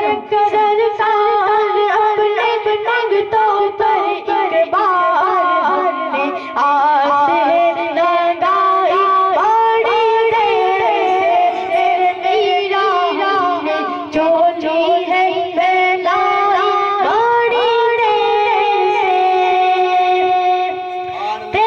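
A boy singing a devotional Urdu song in praise of the saints into a microphone: an ornamented melody with long held, wavering notes and many slides between pitches.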